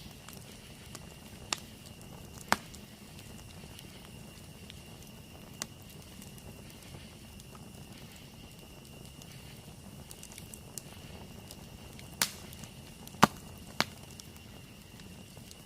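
Campfire burning with a low steady hiss and sparse sharp pops from the wood, three of them close together near the end. A steady high-pitched insect drone runs underneath.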